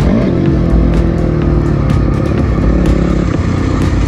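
Single-cylinder four-stroke engine of a Honda CRF250R motocross bike running under the rider, heard from a camera mounted on the bike. Its revs shift about half a second in and then hold fairly steady, with scattered clicks and wind noise over it.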